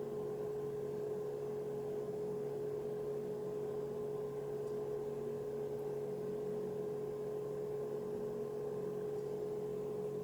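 A steady, unchanging hum with one clear mid-pitched tone over a lower drone.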